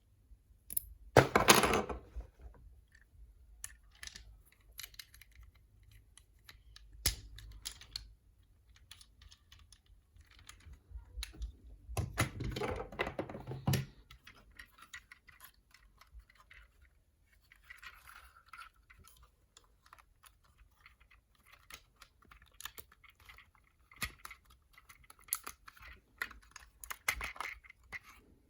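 Toy packaging being handled and opened: scattered clicks and taps of cardboard and plastic, with two louder crinkling, rustling bursts, one about a second in and one around the middle.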